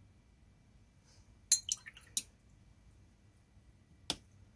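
A paintbrush knocking against a water jar: three quick clinks about a second and a half in, then one more near the end.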